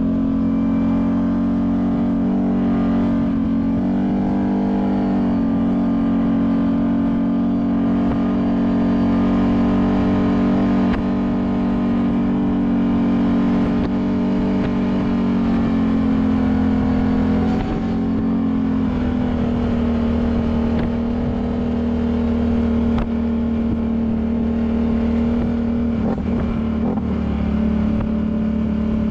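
Side-by-side UTV engine running in a steady drone while driving, heard from on board the vehicle. Its pitch rises briefly about four seconds in, drops around eighteen seconds in, and then holds steady again.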